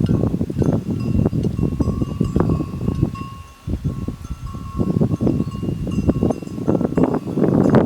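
Animal bell on grazing water buffalo clanking again and again, its ringing tone hanging on after each stroke, over loud low rustling and crunching.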